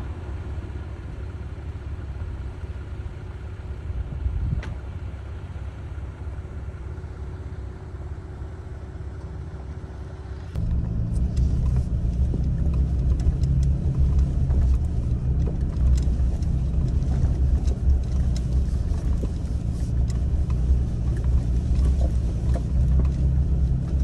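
Off-road vehicles on a dirt trail: a low rumble of engines at first. About ten seconds in it changes suddenly to the louder, steady drone of engine and tyres heard inside a vehicle's cab on the rough track, with light clicks and rattles over it.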